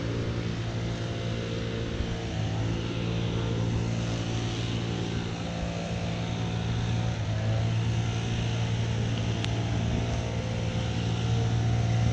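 A steady engine drone: a constant low hum with even overtones under a continuous hiss, holding one pitch throughout.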